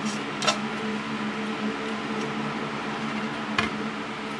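A steady low hum, with two light clicks of the clear acrylic backlight sheets of a laptop LCD being handled, one about half a second in and one near the end.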